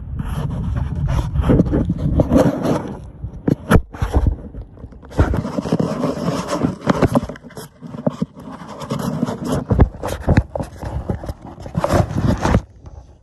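Phone microphone being rubbed and handled: loud scraping and crackling full of sharp clicks, broken by two short gaps and cutting off suddenly near the end.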